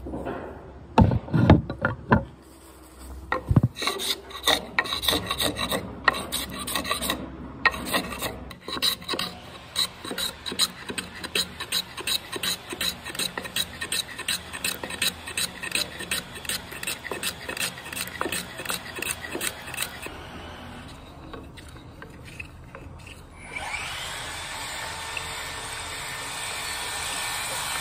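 Japanese hand plane (kanna) shaving the rounded edge of a wooden beam in quick, repeated short strokes. About 23 seconds in the strokes have stopped and a steady machine noise takes over.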